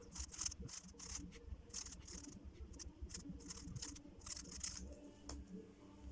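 Speedcube being turned by hand, its plastic layers giving faint, irregular clicks a few times a second.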